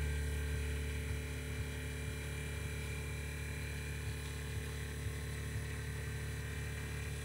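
VW T6 van's air suspension letting the van down from full height: a steady buzzing hum with a light hiss, slightly louder in the first second, as the air slowly vents through the narrow 6 mm lines.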